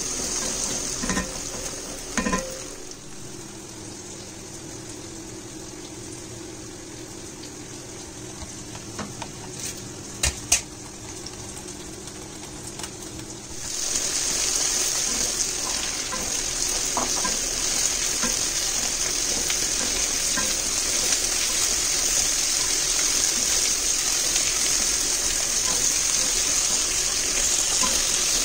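Sliced onions and celery frying in a casserole pot, stirred with a wooden spoon: a sizzle with a few spoon knocks against the pot near the start. The sizzle then quietens, and about halfway through it turns suddenly into a louder, steady sizzle.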